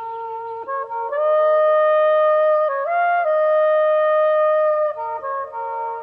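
Slow instrumental music of held chords, with wind instruments to the fore; it swells louder about a second in, and the chord shifts about halfway through and again near the end.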